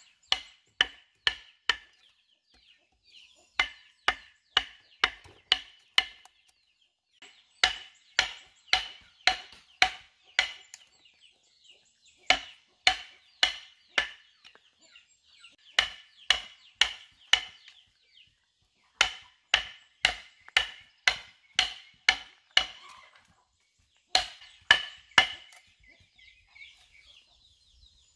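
A long iron chisel bar driven down into the top of a wooden tree stump, gouging out a hollow: sharp strikes about two a second, in runs of four to seven with short pauses, each strike with a slight metallic ring.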